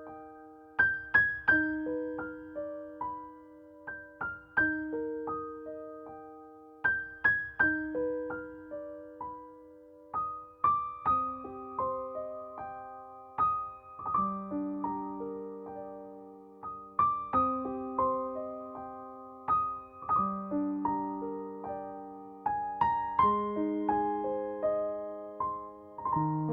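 Gentle solo piano music: a slow melody of struck notes that ring and fade, over lower held notes that grow fuller about halfway through.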